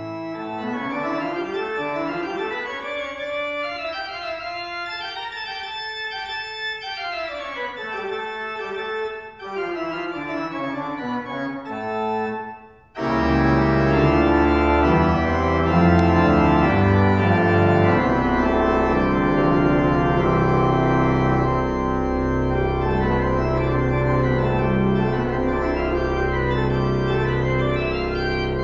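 Organ music: a melodic passage climbing and falling for about the first twelve seconds, then, after a brief break, full sustained chords over a deep bass.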